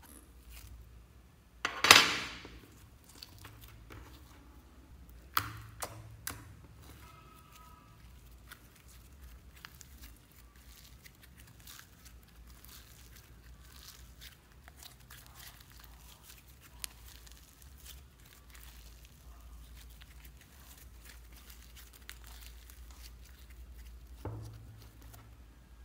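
Fluffy slime being pulled and stretched by hand, giving many small quick crackles. A few louder pulls stand out, the loudest about two seconds in and another near the end.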